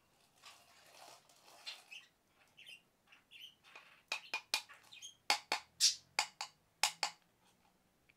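Toy packaging being opened by hand: soft rustling with a few short squeaks, then a quick run of sharp crackles and clicks from about four seconds in.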